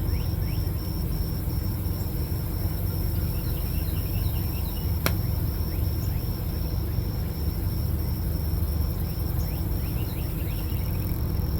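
Steady low outdoor rumble, with an insect's high pulsing trill running through it and a few short falling bird chirps near the start and again near the end; one sharp click about five seconds in.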